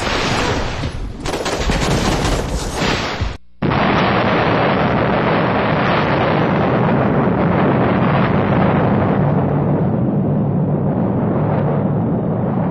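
Loud, dense gunfire in a firefight. It cuts out for a moment about three and a half seconds in, then goes on without a break.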